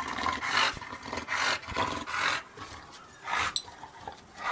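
English bulldog making a run of short, harsh vocal noises as it chases a laser dot, with one more short burst later on.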